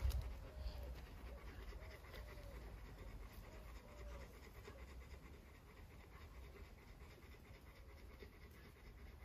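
Faint animal panting with short, soft, pitched cries about twice a second that fade out about halfway through.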